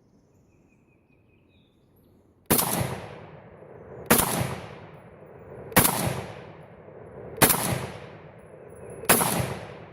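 Ruger Mini-14 firing .223 Remington cast-bullet handloads semi-automatically: five shots at an even pace about a second and a half apart, each followed by a fading echo. The rounds are cycling the action.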